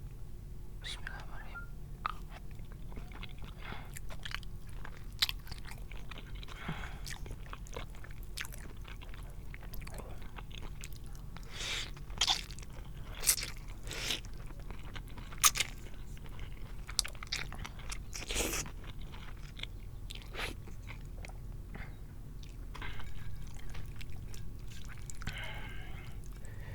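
Close-miked eating of spicy instant noodle soup: wet chewing and biting with sharp mouth clicks and smacks at an irregular pace, a few of them loud around the middle.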